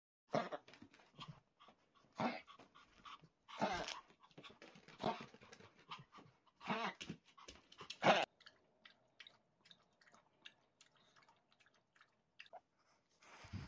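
Yorkshire terrier making short, irregular whimpering sounds, then the faint quick ticks of the dog lapping water from its bowl, with one louder short dog sound near the end.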